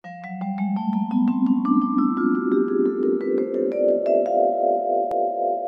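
Short intro jingle of quickly struck mallet-percussion notes climbing steadily in pitch, settling about four seconds in on a held, ringing chord.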